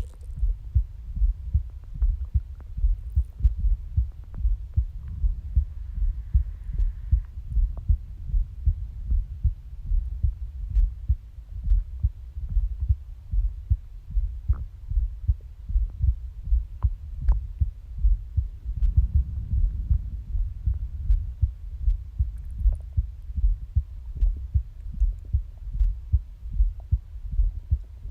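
Human heartbeat heard close on the body: a steady run of low, regular lub-dub thumps from a heart its owner calls skippy. About two-thirds of the way in, a brief low stomach growl rumbles under the beats.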